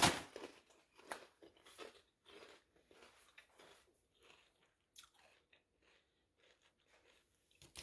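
Close-up mouth sounds of someone chewing ridge cut potato chips: irregular crisp crunches, loudest in the first couple of seconds, then softer chewing.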